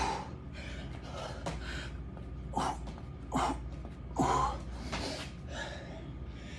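A man breathing hard from exertion, with several sharp, gasping exhalations a second or so apart.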